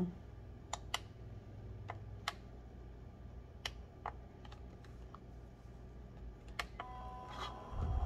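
Several sharp plastic clicks as the buttons on a small battery-powered evaporative air cooler fan are pressed. Near the end a faint steady whine and low hum start as its fan motor begins running.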